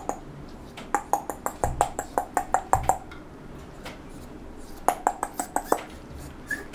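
A person clicking their tongue in quick runs of sharp clicks, about five a second, to call a puppy. One run starts about a second in and another comes near five seconds.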